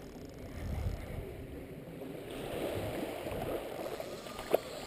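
Wind on the microphone and small waves lapping at the water's edge, an even wash of noise, with one short knock about four and a half seconds in.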